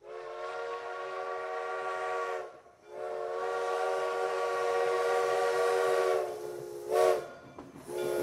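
Train whistle sounding a chord of several notes over a breathy hiss: two long blasts, a short one, and another starting right at the end.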